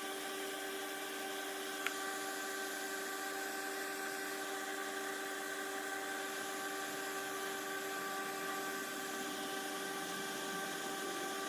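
Vapor polishing machine running steadily: a constant hum with a hiss, while a scratched LEGO piece is being polished. A single small click about two seconds in.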